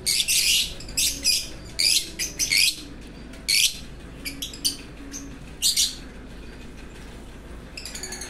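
Peach-faced lovebirds chirping: shrill, high-pitched calls in quick bursts, thickest in the first three seconds and thinning out after about six seconds.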